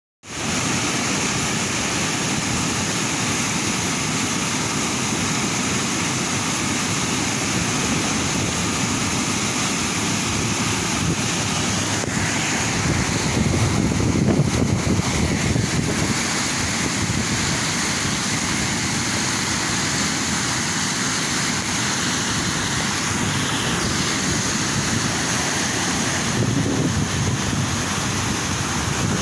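Muddy floodwater rushing and churning over a concrete spillway and through a concrete channel: a steady, loud rush of turbulent water that swells briefly near the middle.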